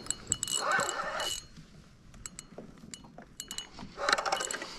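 Fishing reel ratcheting and clicking in irregular bursts while a hooked fish is being fought and reeled in.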